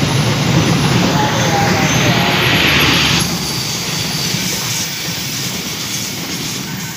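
Passenger train running past on the rails, its coaches rolling by with a loud, steady rumble and hiss. About three seconds in the noise drops sharply, then keeps fading as the train draws away.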